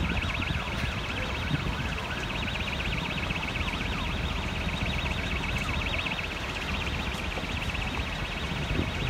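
A fast-sweeping siren, clearest near the start, together with a rapidly pulsing high-pitched alarm tone that runs throughout, over a steady low rumble.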